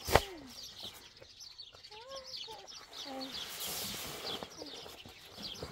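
A sack of cement dropped onto a pickup truck's bed with one heavy thump just after the start, amid continuous chirping of small birds.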